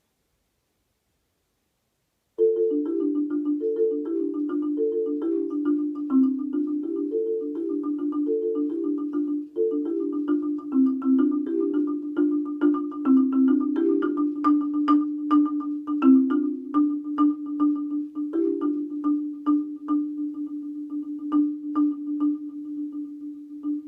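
Solo marimba played with four mallets, starting about two seconds in with fast repeating patterns of notes in the middle register. It then settles into a rapid roll on one low note with sharp accented strikes above it, growing quieter near the end.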